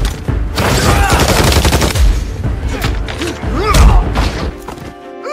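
Film action-scene sound effects: rapid bursts of automatic rifle fire and impacts, with a music score underneath.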